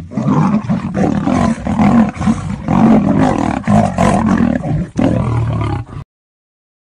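A lion and a tiger roaring as they fight: a loud, rough, unbroken din with brief dips. It cuts off suddenly about six seconds in.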